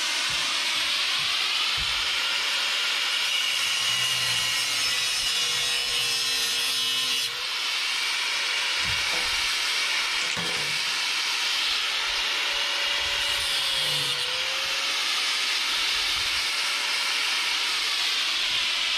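Angle grinder cutting through steel frame tubing: a steady grinding hiss with a faint wavering whine underneath, dipping briefly about seven seconds in.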